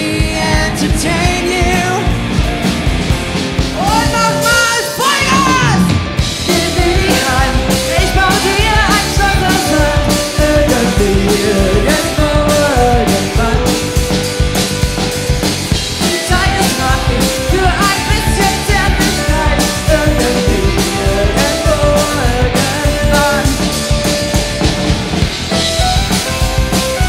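A party band playing an upbeat pop-rock song: sung lead vocals over a steady drum-kit beat, bass and keyboards.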